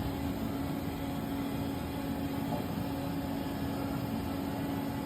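Haas EC-1600YZT horizontal machining center running, a steady machine hum with one even low tone and no distinct clunks.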